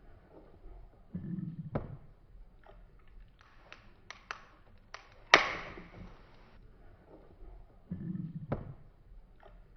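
Crab legs being cracked open: a series of sharp clicks and taps of shell, with one loud crack about five seconds in.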